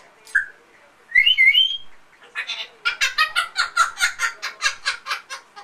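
African grey parrot vocalising: a short call, then a pair of loud whistled notes that slide up and down, then a fast string of short chattering calls, about six a second.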